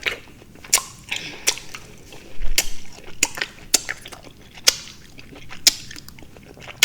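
Close-up chewing of juicy fruit such as melon and grapes: wet, irregular smacks and crunchy clicks from the mouth, about one every half second to a second.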